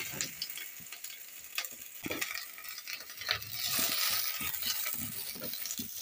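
Chopped onions sizzling in hot oil in a metal pan, stirred with a wooden spoon that scrapes and knocks against the pan.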